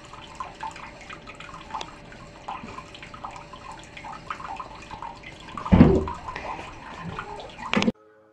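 A bathroom tap running a thin stream of water into a ceramic washbasin, a steady splashing trickle, with a brief louder bump about six seconds in. The sound cuts off suddenly near the end.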